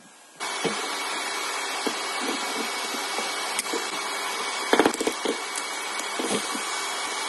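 A dust extractor switches on about half a second in and runs steadily, sucking through its hose. Over it, a hand tool scrapes and knocks at a metal floor-threshold profile, with the sharpest knocks about five seconds in.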